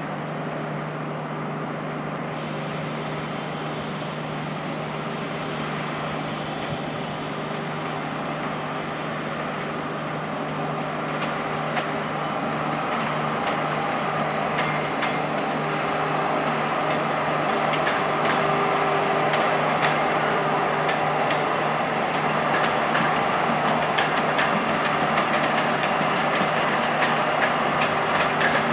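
SS8 electric locomotive pulling out at low speed with a train of 25G passenger coaches: a steady electric hum that grows louder as it draws near. From about halfway, wheels click over rail joints and points.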